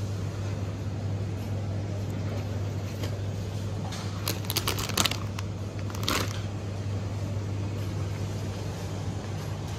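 Supermarket background with a steady low hum, and crinkling, crackling packaging handled by hand about halfway through.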